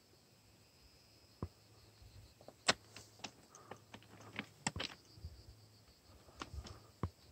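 Footsteps on railway track ballast: faint, irregular crunches and clicks of loose stones underfoot, busiest around the middle.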